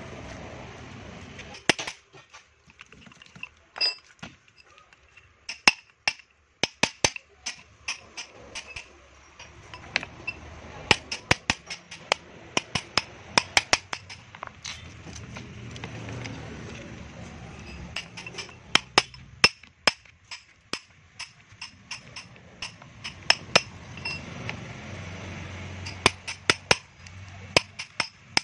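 Hammer blows on a chisel cutting the copper windings off an A/C compressor motor's steel stator: sharp metallic clinks with a short ring, irregular and in quick runs.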